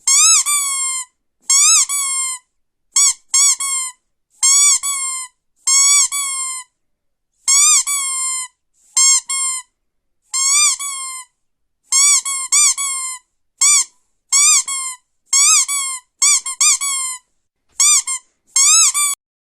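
Rubber squeaky dog toy squeezed again and again: about twenty short squeaks at an uneven pace, some in quick pairs, each rising and then dropping in pitch.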